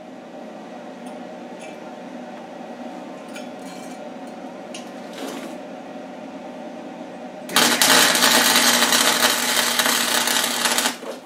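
Wire-feed welder laying a weld: the arc starts about seven and a half seconds in with a loud, steady crackling and sputter, runs for about three and a half seconds, then stops abruptly. Before the arc strikes there is only a steady hum with a few faint ticks.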